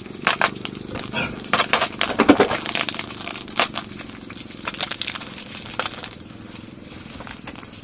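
Pigs eating, with irregular crunching and clicking of chewing and snuffling at the feed, densest in the first few seconds.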